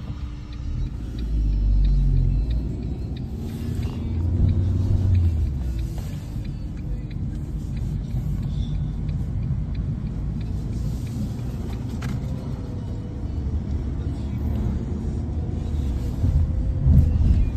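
Steady low rumble of a car driving, with louder swells about two and five seconds in.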